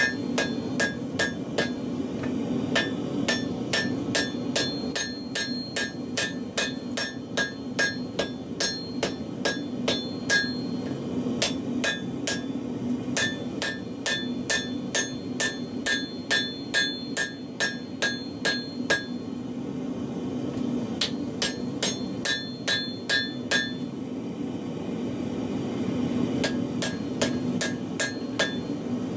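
Hand hammer striking a red-hot laminated steel billet on an anvil, with the anvil ringing at each blow, about three blows a second in runs with short pauses. The layers of spring steel and saw blade are being tapped together in a forge weld. A steady low hum runs underneath.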